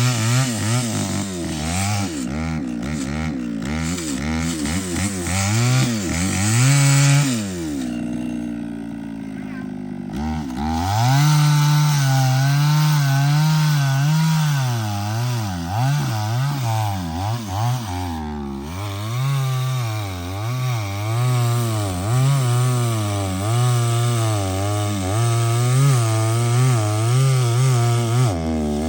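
Chainsaw cutting into a large hardwood tree trunk, its engine note wavering under load. About seven seconds in it falls back to idle for a few seconds, then revs up again and goes on cutting.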